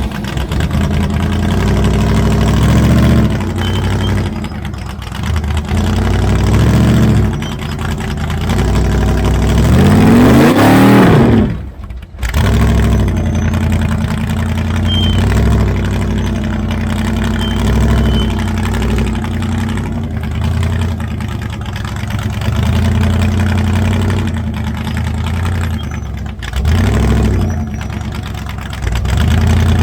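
Engine of a rear-engine 4400-class off-road race car revving up and down in repeated bursts while crawling over boulders, with one long high rev about ten seconds in that climbs and falls, then breaks off abruptly.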